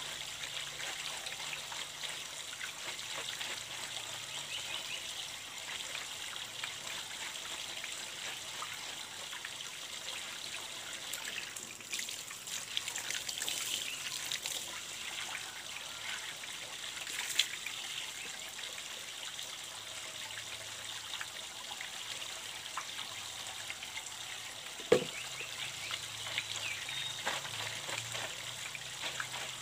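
Water trickling steadily from the open end of a PVC pipe, with splashing from hands working in the flow, louder for a few seconds in the middle. One sharp knock near the end.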